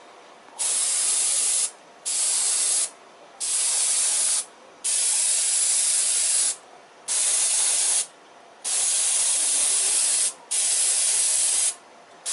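Airbrush spraying House of Color automotive paint in short bursts, about seven in a row, each a hiss of one to two seconds that starts and stops sharply as the trigger is pressed and released.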